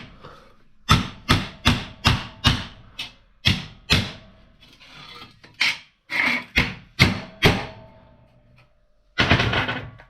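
Hammer blows on a damaged aluminum piece: about fourteen sharp strikes, two to three a second, with a pause about halfway. A short scraping burst follows near the end.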